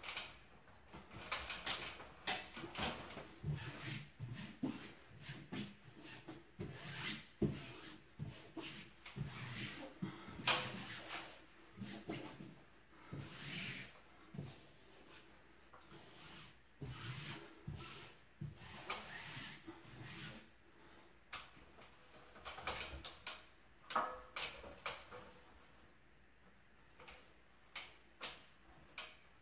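Irregular paper rustling, rubbing and light knocks as a self-adhesive wallpaper sheet is pressed and smoothed onto a ceiling by hand.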